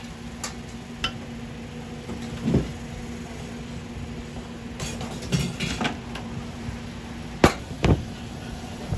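Utensil knocks and clinks on a stainless steel tray and wire rack as cooked egg-burger buns are lifted with a spatula and set down, with two sharp knocks about half a second apart near the end. A steady low hum runs underneath.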